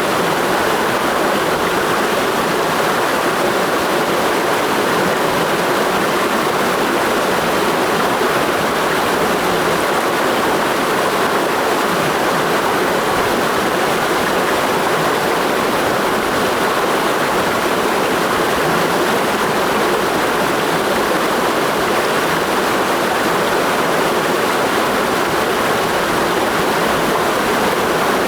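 Mountain stream rushing steadily over rocks, a constant full rush of water.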